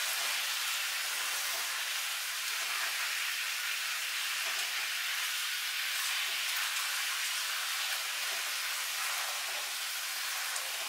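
Chicken sizzling steadily in a frying pan in a soy sauce and garlic sauce, stirred with chopsticks, with a few faint clicks.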